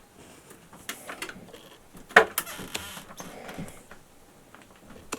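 Electrical cable being worked into a junction box: rustling and scraping of the cable against the box, with scattered clicks and knocks, the sharpest a little over two seconds in.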